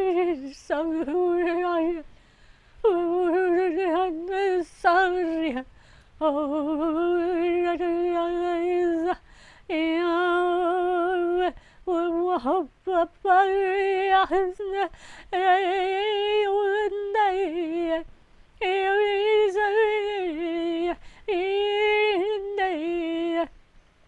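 A woman's voice groaning in prayer, the charismatic 'groaning in the Spirit': long wordless hummed notes that waver around a steady pitch, broken by short pauses for breath every few seconds.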